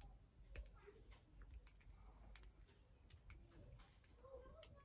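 Near silence with faint, scattered clicks and handling noises from a small lipstick package being broken open and handled.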